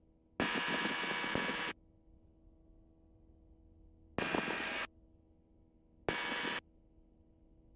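Three bursts of radio static that switch on and off abruptly, the first over a second long and the next two about half a second, as transmissions open and close on the ultralight's aviation radio. Between them, a faint steady engine hum.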